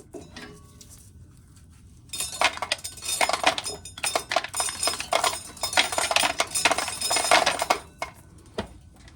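Corn kernels being shelled off the cob and rattling into a pail: a dense run of clicks and clinks that starts about two seconds in and stops near the end, with a few single clicks around it.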